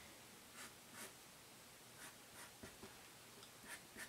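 Felt-tip marker drawing on paper: faint, short scratching strokes of the tip as a curve is traced, a few each second.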